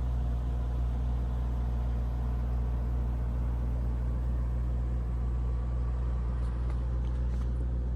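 Lamborghini Urus's twin-turbo V8 engine running steadily at low speed, a constant low hum.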